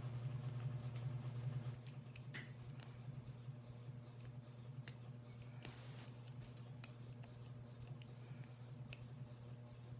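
Lock picks working the wafers of a double-sided wafer padlock: scattered small metallic clicks and scrapes at an irregular pace, over a steady low hum that is louder for the first second or two.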